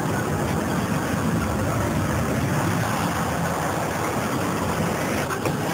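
Steady, loud rushing whoosh of wind, a super-speed running sound effect, with a low rumble beneath it.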